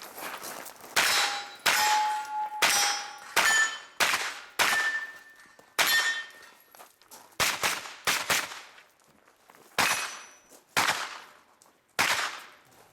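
About a dozen pistol-caliber carbine shots fired at an uneven pace. Several are followed by the ringing of hit steel targets.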